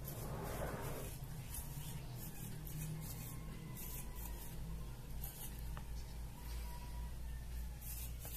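Soldering iron tip scraped and jabbed in a mug of metal wool to clean it: a scratchy rustle, loudest in the first second, then repeated faint scratches, over a steady low hum.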